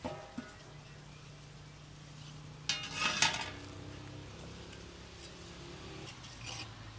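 Aluminium cooking pot and its metal lid clinking as the lid is lifted off, then a louder ringing clatter of metal about three seconds in, with lighter clinks of a metal ladle against the pot near the end.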